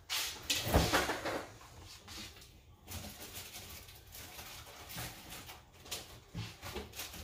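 French-door refrigerator door pulled open with a sharp thump just under a second in. Then come quiet rustling and a few light knocks of containers being shifted about on the fridge shelves.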